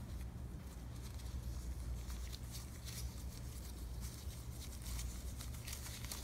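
Faint, intermittent rustling and brushing of a white cotton glove being pulled on over a latex-gloved hand, over a steady low hum.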